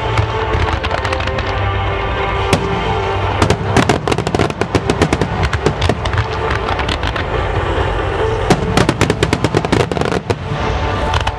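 Aerial fireworks bursting and crackling in rapid volleys over music with sustained notes. The bangs come thickest from about a third of the way in and again just before the end.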